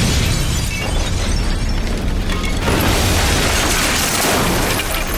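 Explosion of a thrown lump of fulminated mercury blowing out a building's windows: a loud, sustained low rumble with glass shattering and debris crackling and clattering down.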